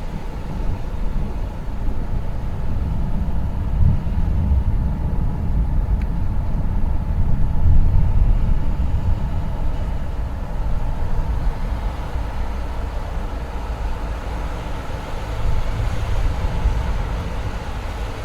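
Distant thunder rumbling low and long, swelling about four seconds in, loudest around eight seconds, and swelling again near the end.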